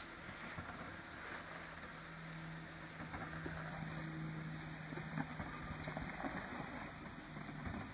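Jeep Wrangler Unlimited's engine running steadily at low revs as it crawls down a rocky slope, with scattered knocks and crunches of tyres on rock in the middle of the stretch.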